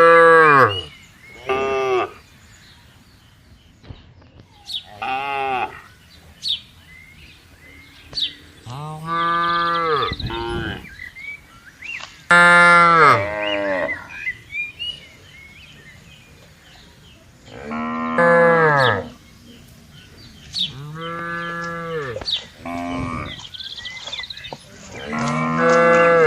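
Cattle mooing repeatedly: about eight calls, some short and some drawn out for over a second, several dropping in pitch as they end.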